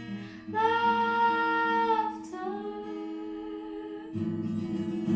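A woman sings two long held notes over acoustic guitar, then the guitar strumming grows fuller about four seconds in.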